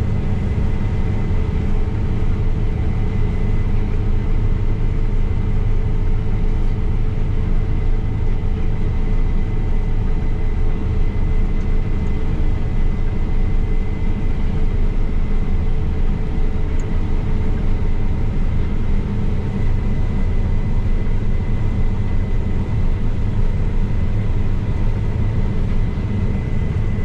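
Combine harvester running steadily, heard from the cab: a constant low engine drone with a steady high whine above it.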